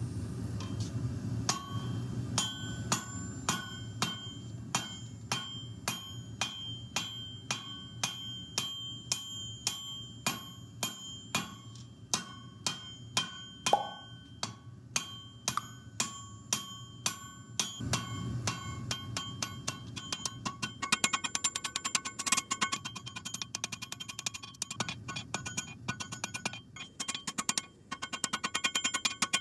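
Hand hammer forging hot steel on a 66-pound cast steel anvil: steady blows, each with a bright metallic ring, about one and a half a second, then a quicker, denser run of blows in the last third. A low steady rumble sits underneath.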